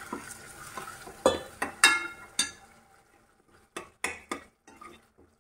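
Steel spoon stirring thick gravy in a coated cooking pot, scraping and knocking against the pot's sides and rim in a string of irregular clinks.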